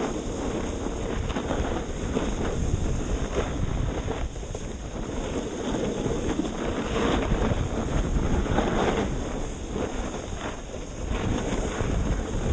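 Wind rushing over a GoPro's microphone while skiing downhill, with the hiss of sliding on packed snow swelling and fading every second or two as the turns go.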